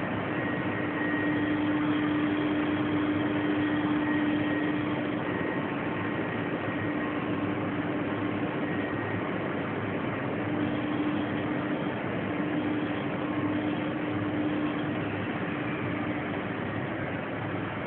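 Macchi three-layer blown film co-extrusion line running in production: a steady machinery hiss with a low hum that comes and goes.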